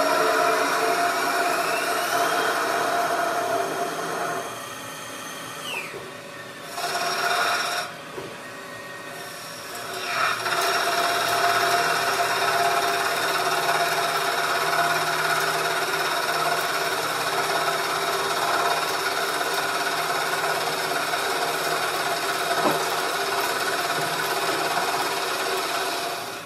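CNC lathe turning a metal cannon body, the spindle running with a steady whine while the tool cuts and the air-blast coolant hisses. The cut eases off for a few seconds in the middle, with a short louder burst, then runs steadily again.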